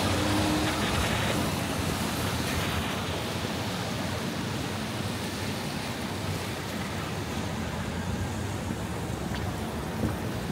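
Steady city traffic noise: a continuous hiss of tyres on wet pavement under a low rumble of cars, easing off a little over the first few seconds.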